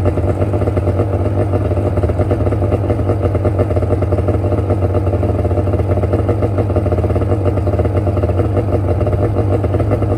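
Polaris 700 snowmobile's two-stroke engine idling steadily.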